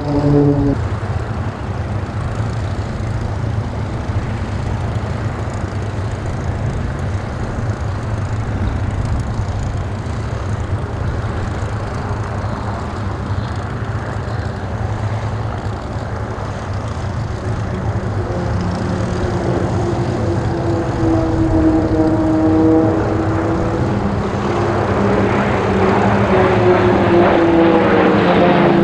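Pilatus PC-9/A turboprop aerobatic aircraft flying overhead: a steady engine and propeller drone that grows louder in the second half, its pitch falling as aircraft pass by at the start and again near the end.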